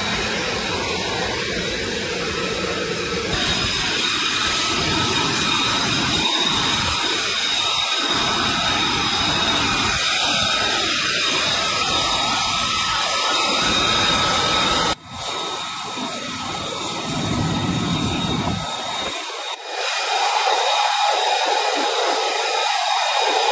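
F-35B Lightning II's Pratt & Whitney F135 jet engine running at ground idle: a steady rushing hiss with high, steady turbine whine tones. The sound changes abruptly about 15 and 20 seconds in, and after the second change the deep part is gone.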